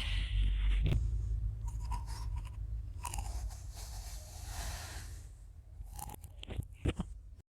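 A knife cutting through crunchy kinetic sand: a run of grainy crunching and scraping, with a few sharp clicks near the end, over a steady low rumble. The sound cuts off suddenly at the end.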